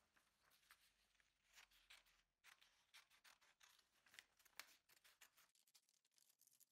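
Faint paper rustling, then a run of short, quick snips as scissors cut through a printed paper sheet.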